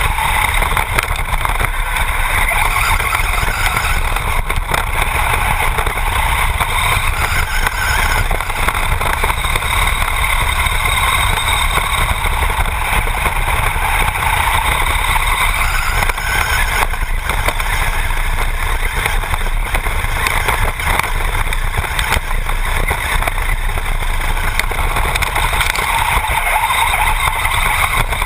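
Onboard sound of a Traxxas Bandit RC buggy with a brushless motor driving continuously over dirt: the motor and drivetrain whirring together with tyre and ground noise, over a steady low rumble of vibration on the camera mounted on the car.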